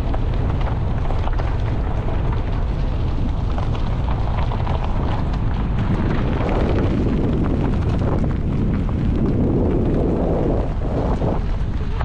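Heavy wind buffeting on an action-camera microphone while riding a small motorcycle, with the engine running underneath; the rush swells louder for a few seconds past the middle.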